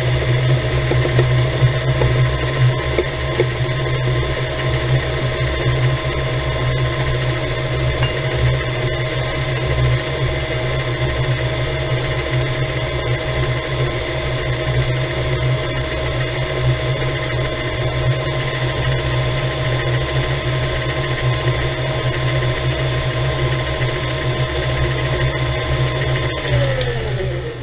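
Electric stand mixer running steadily with its flat beater, creaming butter while sugar is added a little at a time. Near the end the motor is switched off and its whine slides down in pitch as it spins down.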